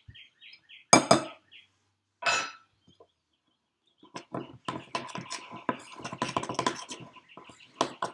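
A spoon knocking against a mixing bowl a couple of times as a tablespoon of flour goes in, then, about four seconds in, quick repeated scraping and knocking as the spoon stirs the thick play dough in the bowl.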